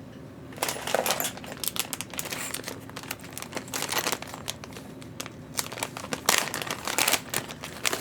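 Crinkling and rustling of plastic being handled, a run of sharp crackles that starts about half a second in and comes in bursts, with a short lull about five seconds in.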